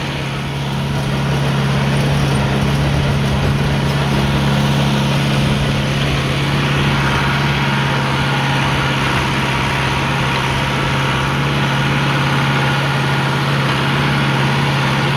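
John Deere tractor engine running steadily at PTO speed while driving a fertilizer spreader: a constant low engine hum with a steady wash of machinery noise over it.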